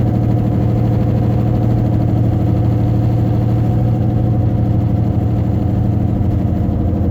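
Loud, steady low drone inside a Toyota Camry's cabin at about 60 mph: the growing noise from the wheels that the owner suspects is a failing wheel bearing.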